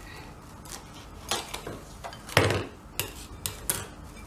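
Plastic cling film being pulled and pressed over a container of dough: a few short sharp crackles and knocks, the loudest about two and a half seconds in.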